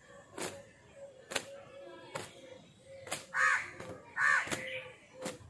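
Wet cotton towel slapping against long wet hair in sharp cracks, roughly one a second, as the hair is beaten dry. Midway a bird calls loudly twice, the loudest sound here.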